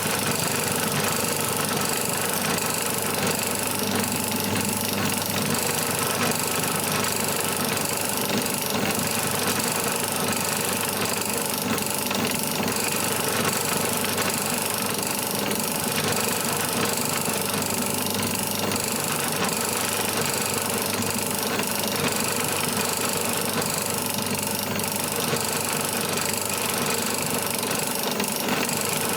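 Pillar drill (drill press) motor running steadily, spinning a roll crimp die as it crimps .410 shotshell cases one after another.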